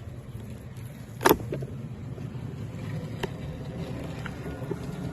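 A single sharp knock about a second in, followed by a few lighter clicks, over a steady low rumble.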